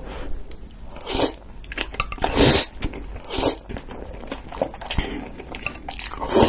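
Close-miked eating of spicy stir-fried noodles: several noisy slurps, the loudest about two and a half seconds in, with chewing and small mouth clicks between them.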